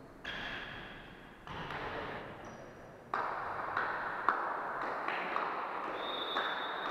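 Volleyball play on a sports-hall court: a sharp ball hit a little past four seconds in, a few lighter knocks, and short high shoe squeaks on the court floor, over steady hall noise.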